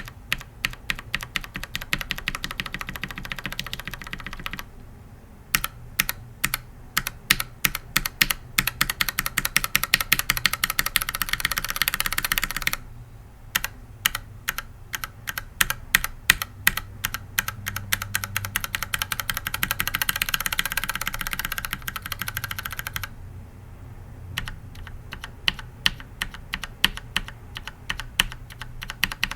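Mechanical keyboard switches on an undampened Think 6.5 hotswap keyboard, keys tapped one after another: each run starts with spaced clicks and speeds up into very fast rapid-fire tapping, then breaks off briefly. This happens four times.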